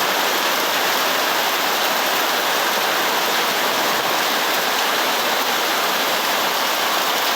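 Heavy thunderstorm downpour mixed with hail, pelting down in a steady, dense hiss.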